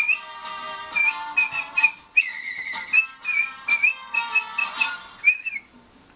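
A person whistling a lively melody in short, trilling high notes over an instrumental backing track. The sound dies away near the end.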